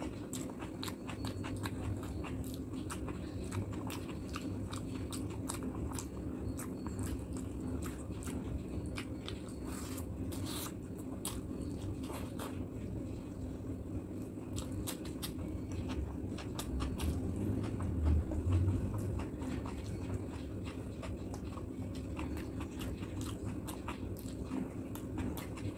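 Chewing and lip smacking of a person eating rice and curry, with many quick mouth clicks.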